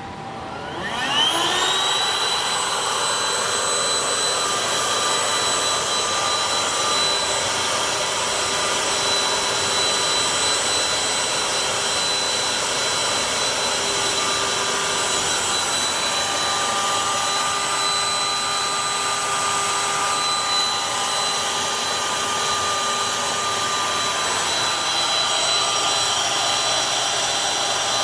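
Electric air compressor spinning up about a second in, its whine rising quickly, then running steadily with a high, many-toned whine over a rush of air as it supplies a prototype mechanical ventilator.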